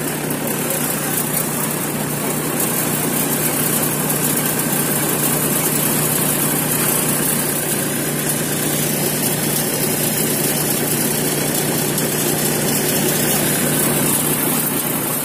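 Threshing machine running steadily while it threshes fenugreek, a constant low drone with a hiss of chaff and seed over it.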